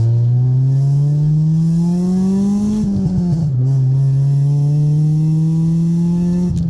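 Honda Civic EK engine and full header-back exhaust accelerating hard: the revs climb steadily for about three seconds, drop at an upshift, climb again, and drop at another shift near the end. The exhaust leaks have just been sealed.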